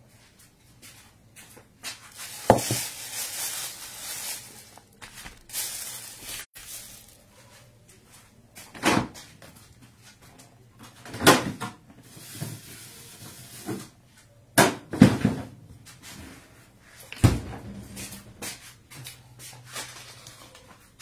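Kitchen handling sounds: about six sharp knocks and bumps close to the microphone, with stretches of rustling between them, as things are moved about and set down.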